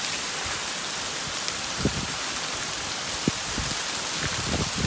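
Hail coming down hard, a dense steady patter of hailstones striking surfaces, with a few louder single knocks of stones landing close by.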